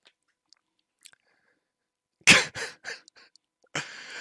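A man coughs, one hard cough about two seconds in followed by a few quicker, weaker ones, then a rasping breath near the end. Faint mouth clicks come before the coughing.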